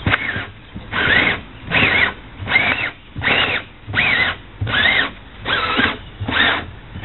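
Plastic screw-on lid ring being twisted by hand onto a plastic rain barrel, its threads squeaking in repeated strokes about every three quarters of a second, each with a wavering squeal.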